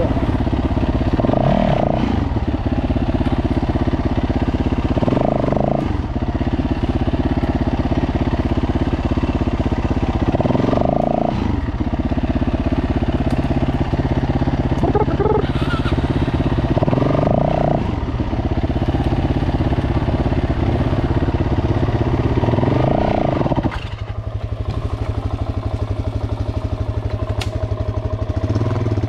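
Dirt bike engine running steadily at low speed, with a short swell in its note every five or six seconds. About 24 seconds in it drops to a quieter, lower running note.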